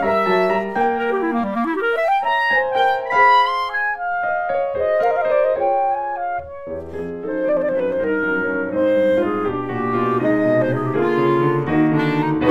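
Clarinet and Steinway grand piano playing classical music together: the clarinet carries the melody with quick runs in the first half, then longer held notes over repeated piano chords.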